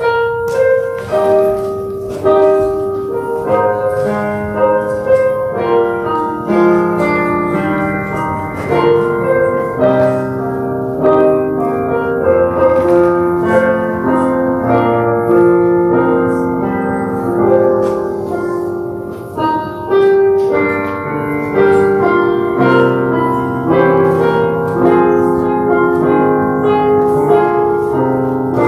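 Keyboard instrumental music: a slow piece played in chords of several parts, which begins suddenly and carries on steadily.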